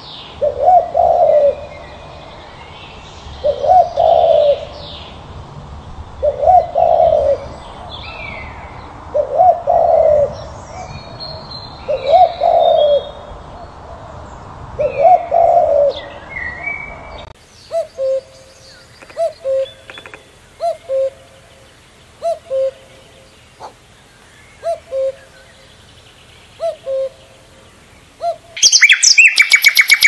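A dove cooing, one low coo about every three seconds, with small birds chirping faintly higher up. Partway through, the calling changes to short paired low notes about every second and a half. Shortly before the end, a loud, fast-repeating high-pitched sound starts.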